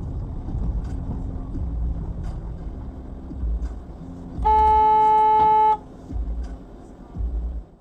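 A car horn sounds once, a single steady held blast of a bit over a second, about halfway through, over the low rumble of a vehicle on the move.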